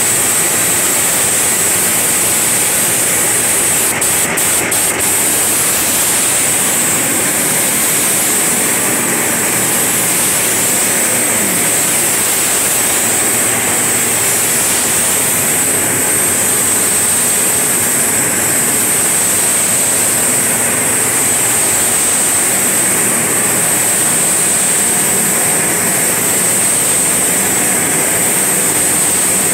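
Gravity-feed paint spray gun hissing steadily as compressed air atomises paint onto a car body, with a high-pitched edge to the hiss. A few short clicks about four seconds in.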